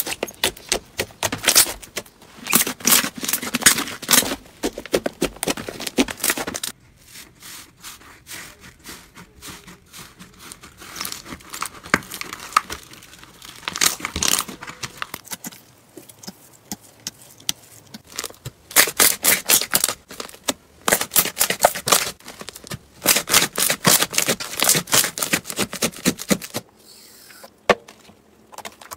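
Slime being squeezed, kneaded and stretched by hand, giving dense runs of wet clicks and crackles, with quieter squishing stretches between.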